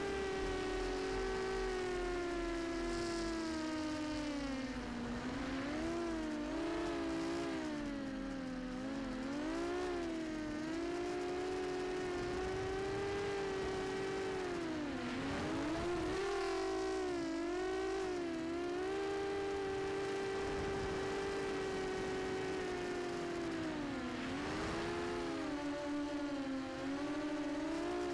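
Whine of a racing quadcopter's Sunnysky 2204 2300KV brushless motors and Gemfan 6030 propellers, heard from the onboard camera. Two or more close motor tones rise and fall constantly as the throttle changes, with quick dips and swoops during turns.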